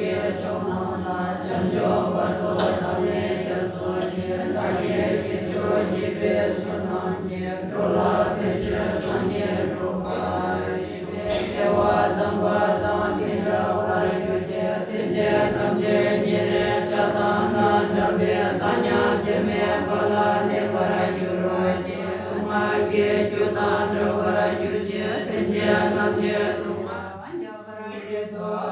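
Group of nuns chanting prayers together in unison: a steady, many-voiced drone. The chant dips briefly near the end.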